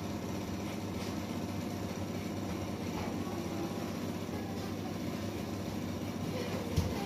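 Electric hair clippers running with a steady buzz while the barber trims the back and sides of a client's head. There is a short knock near the end.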